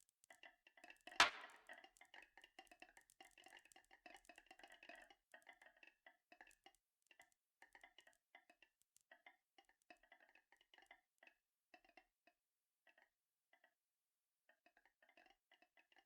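Marbles rolling and clicking along a marble run track: a dense quiet rattle that thins out to scattered single ticks, with one sharper click about a second in.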